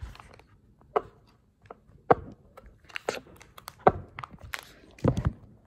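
Handling noise from a hand gripping and adjusting the phone that is recording: irregular sharp knocks and clicks with fingers rubbing against it. The loudest knocks come about two, four and five seconds in.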